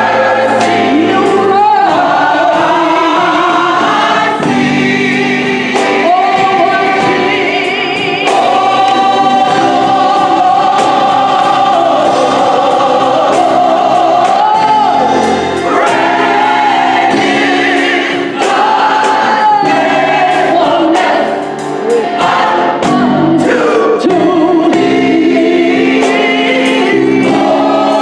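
Gospel choir singing in harmony behind a lead soloist, backed by electric bass guitar and a drum kit.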